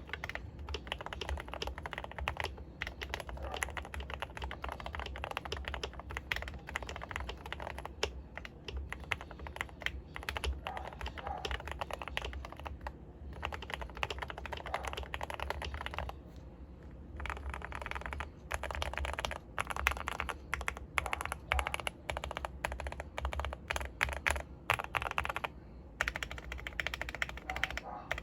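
Fast typing on a Glorious GMMK Pro mechanical keyboard with factory-lubed Gateron Yellow Pro linear switches, Kon Momo clone keycaps and modded GOAT stabilizers: a dense, continuous stream of key clacks with brief pauses about halfway through.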